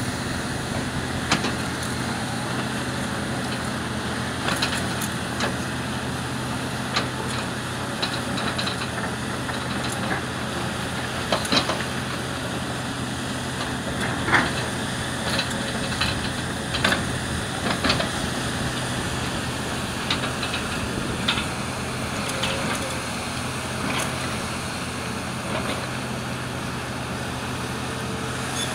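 Hitachi Zaxis hydraulic excavators' diesel engines running steadily, with repeated sharp knocks and clatter of rock against a steel bucket as it digs through broken rock, loudest a little past the middle.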